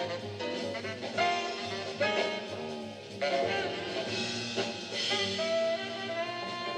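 Live jazz quartet playing, with a tenor saxophone carrying the lead line over piano, plucked upright bass and drums.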